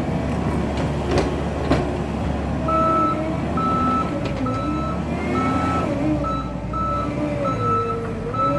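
Skid steer running and working the ground, its engine note rising and falling with load. Two or three sharp knocks come in the first two seconds. From about three seconds in, its reversing alarm beeps steadily, about one and a half beeps a second, as it backs up.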